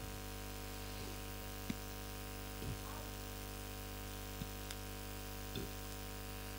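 Steady low electrical mains hum, with a few faint clicks scattered through it.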